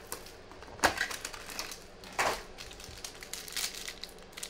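Panini Crown Royale basketball card box being opened by hand and its plastic-wrapped pack pulled out: crinkling plastic and rustling cardboard, with two sharper crackles about one and two seconds in.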